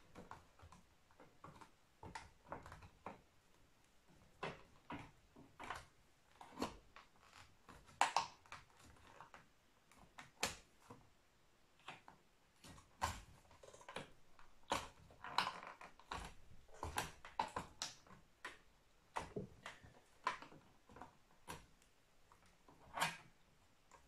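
Scattered, irregular clicks, taps and short scrapes of a screwdriver prying at the plastic and metal casing of an Acer all-in-one PC, working the clipped-in metal trim strip loose.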